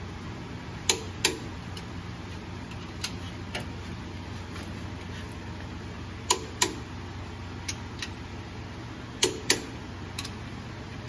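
Sharp metallic clicks from a hand wrench working the bolts of a Ford Super Duty rear differential. They come mostly in pairs a fraction of a second apart, five times over, above a low steady shop hum.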